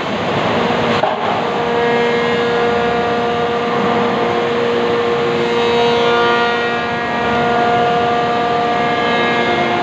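Loud, steady factory machinery noise with a hum of several steady tones, from lumber-processing machines and conveyors; a single knock about a second in.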